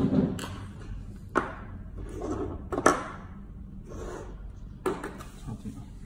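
Small lock-wiring hardware being handled on a tabletop: four sharp clicks and knocks spaced about a second and a half apart, the loudest near the middle, with soft rustling between.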